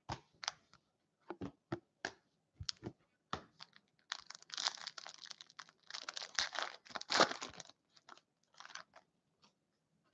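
Hockey trading cards clicking and tapping as they are handled, then a card pack wrapper being torn open and crinkled for about three seconds starting about four seconds in, followed by a few more light clicks as cards are slid out.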